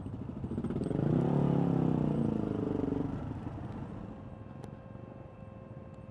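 Motor scooter engine running at low speed, with a louder engine note swelling up and falling away between about one and three seconds in; after that the engine sound fades.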